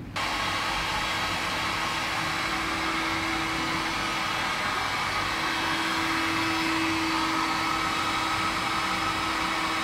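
Heat gun blowing steadily with a faint, even whine, melting a low-temperature solder sleeve and its heat-shrink over a spliced battery cable join.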